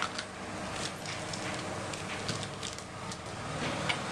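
Food frying in hot oil: a steady sizzle with scattered small crackles and pops.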